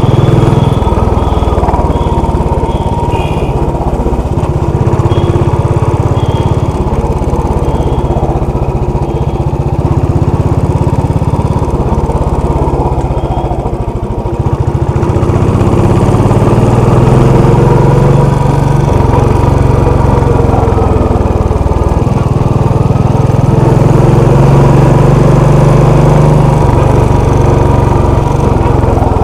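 Royal Enfield Classic 500's single-cylinder engine running steadily while the motorcycle is ridden. Its note rises and falls twice in the second half.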